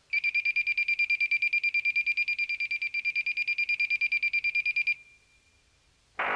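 Electronic alarm beep: a high tone pulsing rapidly, about eight times a second, for about five seconds, then a brief faint steady tone. A louder, fuller burst of sound starts just before the end.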